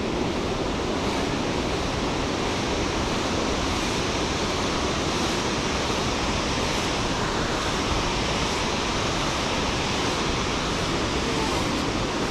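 Waterfall's rushing water, a steady, even roar of falling water.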